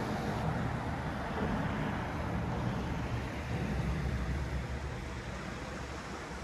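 Steady outdoor background noise: a low, uneven rumble under a broad hiss.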